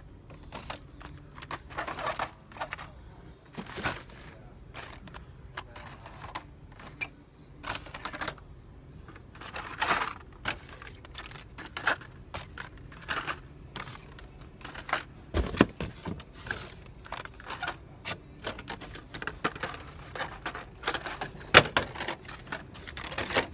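Hot Wheels blister-carded toy cars being handled and hung back on metal peg hooks: plastic blisters and cardboard cards click, rattle and knock at an uneven pace. There are two louder knocks, one at about 15 seconds and one near the end.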